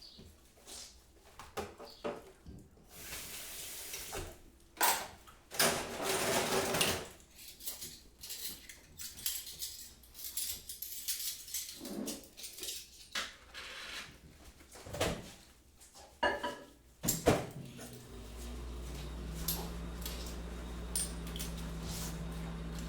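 Kitchen work sounds: dishes, cutlery and utensils clattering and knocking at irregular intervals, with a couple of brief rushing noises. About 18 seconds in, a steady low electrical hum starts as an appliance is switched on.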